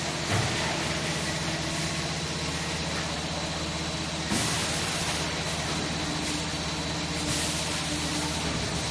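Plastic pipe threading machine running: a steady motor hum with a faint high whine. A short burst of hiss comes about four seconds in, with fainter hisses near the end.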